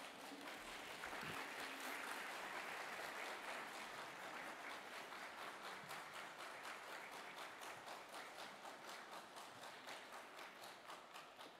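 Audience applauding, swelling over the first couple of seconds and then slowly dying away into scattered separate claps near the end.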